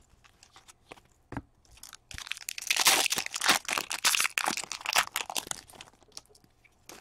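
Wrapper of a hockey card pack being torn open and crinkled: a dense crackle lasting about three and a half seconds, preceded by a few faint clicks of cards being handled.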